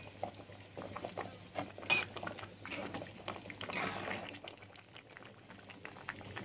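Fish soup boiling in a wok, bubbling and popping steadily, with a ladle stirring through the broth; a couple of louder stirring sounds come about two and four seconds in.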